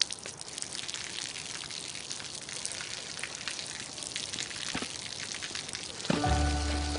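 Steady hiss of water with many small patters and crackles; music with a low bass comes in about six seconds in.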